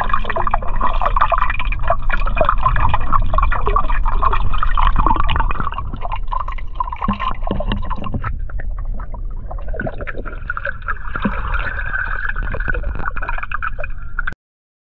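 Water heard through a submerged camera: a muffled wash of crackling, bubbling water noise. It drops a little in level about six seconds in and cuts off abruptly near the end.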